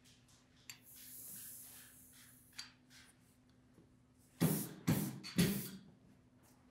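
Hand ink roller (brayer) worked through printing ink: a soft hiss about a second in, then three loud rolling strokes in quick succession, each about half a second long.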